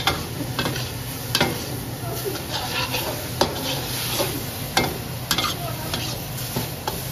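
A metal ladle stirs and scrapes food around a wok, knocking sharply against the pan at irregular moments. A steady sizzle of frying runs underneath.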